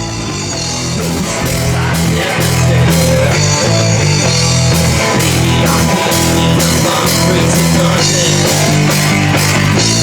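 Rock music with a drum kit and guitar, swelling in loudness over the first couple of seconds and then holding steady.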